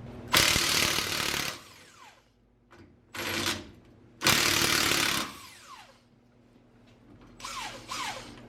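Impact wrench run in bursts on suspension bolts: one long burst, two shorter ones, then two quick blips near the end. Each trails off in a falling whine as the motor spins down.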